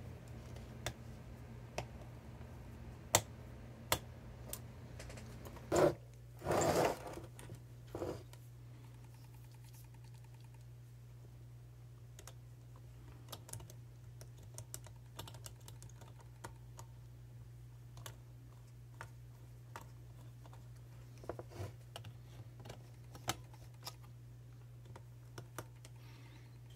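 Scattered small clicks and ticks of a hand screwdriver turning small screws into a car stereo's metal chassis, with a louder handling noise lasting about a second around six to seven seconds in. A steady low hum runs underneath.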